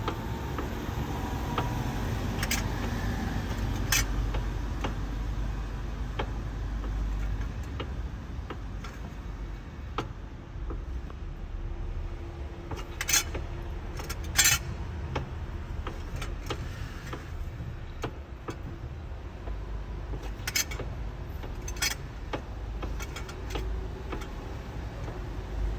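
BMW E92 M3 clunking as the steering wheel is turned: sharp metallic clunks at irregular intervals, the loudest coming in pairs about a second and a half apart, over the low steady rumble of the idling 4.0-litre V8.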